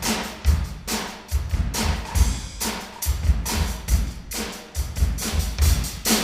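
A drum kit played hard in a fast, busy rhythm, with bass drum thumps and snare hits several times a second.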